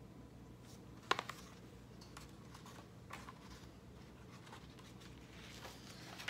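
Pages of a picture book being handled and turned: a sharp tap about a second in, then faint paper rustles, growing a little louder near the end as a page flips over.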